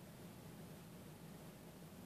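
Near silence: room tone, a faint steady hiss with a low hum.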